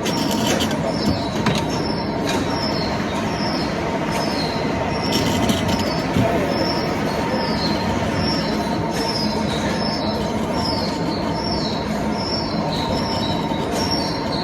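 Metal lathe turning a workpiece under cut: a steady running whine with a short, falling metallic squeal that repeats about twice a second.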